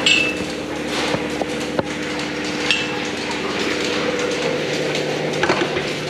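Milking parlour machinery: the steady drone of the milking machine, with several sharp metallic clinks and knocks from the cluster and steel fittings, one ringing briefly.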